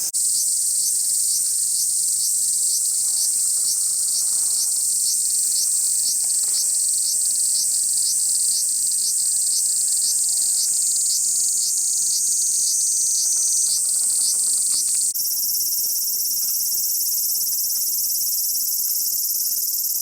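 Large brown cicadas (aburazemi) singing in chorus: a continuous high, sizzling drone. Its texture changes suddenly about fifteen seconds in.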